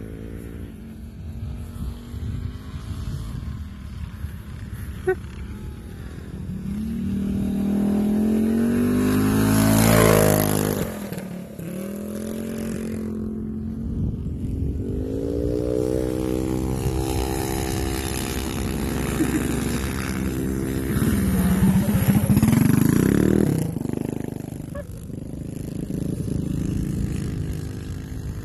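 Minibike engines racing on ice, revving up and down as the bikes run the course. One passes close and is loudest about ten seconds in, its pitch dropping as it goes by. Another swells and revs hard around twenty-two seconds in.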